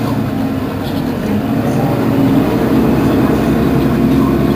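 Mercedes-Benz Citaro Facelift city bus engine idling at a stop, a steady low hum that grows a little louder about two seconds in.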